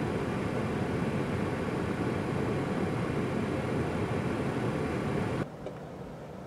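A vehicle running close by, heard as a loud, steady rushing rumble with no clear engine note. It stops abruptly about five seconds in, leaving a quieter steady hiss.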